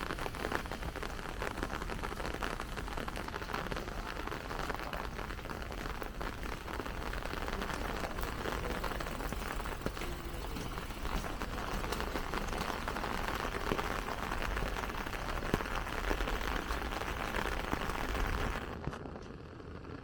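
Rain pattering on an umbrella overhead: a dense, even crackle of many small drop ticks. Near the end the patter cuts off suddenly, leaving a quieter low background rumble.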